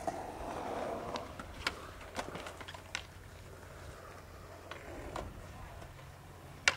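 Skateboards clacking on concrete at a distance: scattered light, sharp clicks, with one sharper clack near the end.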